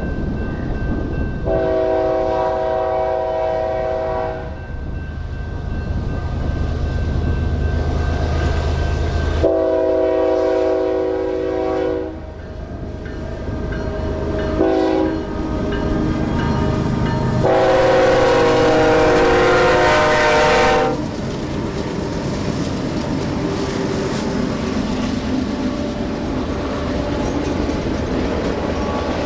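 BNSF freight locomotive's multi-note air horn sounding the grade-crossing signal, long, long, short, long, the last blast the loudest, over the rumble of the diesel engines. After the horn, the locomotives and freight cars roll past with a steady rumble and clatter.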